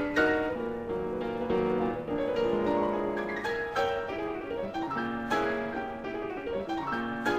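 Digital piano playing a melody over chords, notes struck one after another with clear attacks and the harmony changing every second or so.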